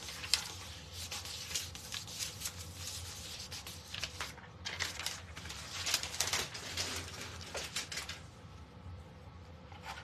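Paper rustling and scratching as fingers rub a rub-on transfer's backing sheet down onto a wooden cutting board, burnishing the transfer so every piece sticks. The rubbing comes in short, irregular strokes and dies down about eight seconds in.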